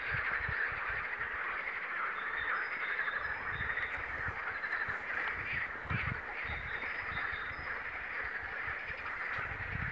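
A steady chorus of many frogs calling together from the marsh pond. Short, high notes repeat faintly above it, and low rumbles of wind come and go on the microphone.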